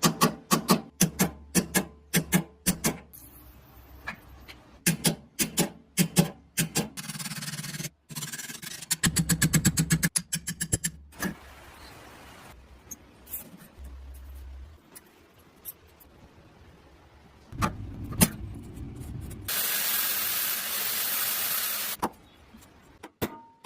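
Hand-tool restoration work on an old metal cutter: runs of sharp clicks and knocks, scraping and rubbing, and a stretch of about two and a half seconds of steady hissing near the end.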